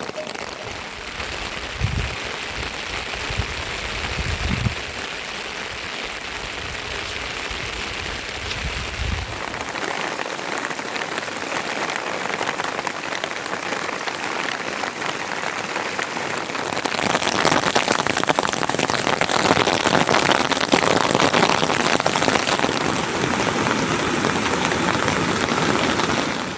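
Heavy rain falling and pattering on surfaces, a steady hiss that gets louder about two-thirds of the way through. A few low thumps come in the first few seconds.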